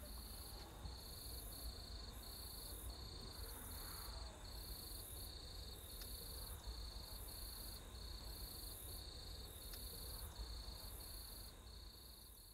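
Faint insects chirping in an even rhythm, two high pulsing calls over a low rumble, fading out near the end.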